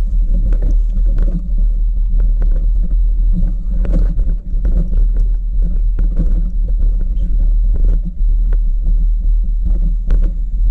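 Bicycle riding over a rough stony dirt track, heard as a steady low rumble of vibration and wind on the microphone with frequent short knocks and rattles from the bumps.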